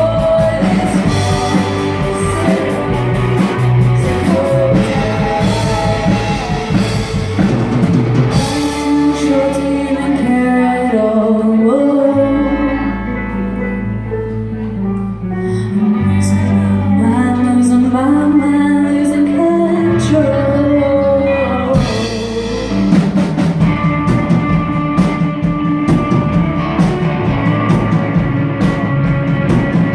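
Live rock band playing a song with singing, guitars, bass, keys and drums. About nine seconds in the drums drop out for a softer stretch of held bass notes and melody, and the full band with drums comes back in about two-thirds of the way through.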